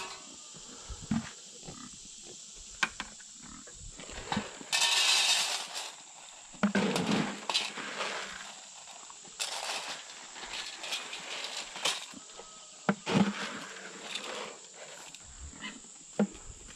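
Young pigs grunting and squealing as they crowd a metal feed pan. About five seconds in there is a rush of pelleted feed poured into the pan, followed by the piglets jostling and eating at it.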